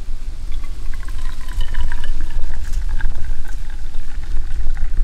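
Hot red liquid pouring out of a perforated metal infuser basket and splashing into a glass jar as it fills, over a steady low rumble.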